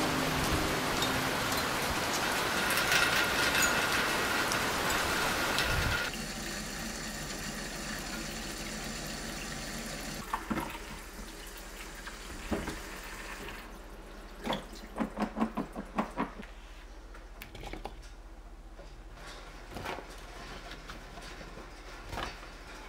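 Steady heavy rain for about six seconds, then a kitchen tap running into a steel sink as cherry tomatoes are rinsed. After the water stops comes a quick run of about six knife chops on a cutting board, then a few single knocks of cucumber pieces going into a wooden bowl.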